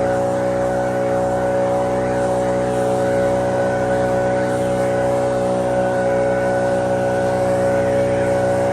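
Commercial lawn mower engine running at a steady, even speed, with a thin steady whine above it.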